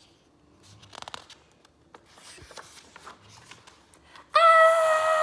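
Soft paper rustling and handling of book pages, then about four seconds in a woman's voice lets out a long, loud, high "Aaah!" scream, held on one pitch, in character for a startled book character.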